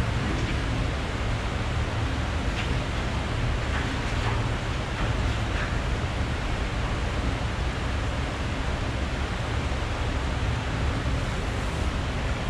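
Steady rushing noise with a deep low rumble underneath.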